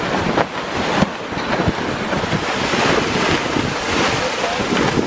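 Strong wind buffeting the microphone over the steady rush of the sea past a sailing catamaran, in about 18 to 20 knots of wind, with a few low thumps in the first two seconds.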